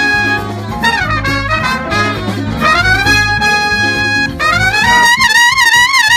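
A brass horn section plays held notes that slide between pitches. About four seconds in, a louder high trumpet line with a wavering pitch comes in.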